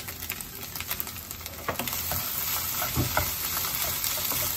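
Fried rice with raw fish pieces sizzling in a nonstick frying pan while a wooden spatula scrapes and taps through it, spreading and stirring. The sizzle grows louder a little under two seconds in.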